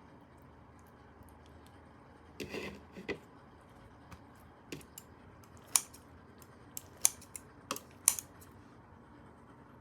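Scattered sharp clicks and taps of small hard objects being handled, about a dozen spread over several seconds, with a brief rustling scrape about two and a half seconds in.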